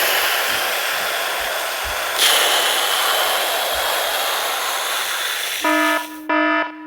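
Mock emergency alert broadcast: a loud hiss of static, then about five and a half seconds in a harsh buzzer-like alert tone starts, beeping in short repeated bursts.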